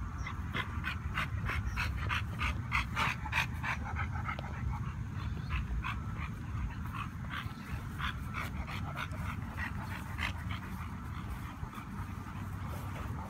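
Dog panting, a long run of quick breaths several a second that thins out near the end, over a steady low rumble.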